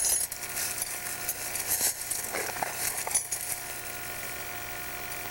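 Dry brush and leaf litter crackling and rustling, with a few sharp clicks or snaps, over a faint steady hum.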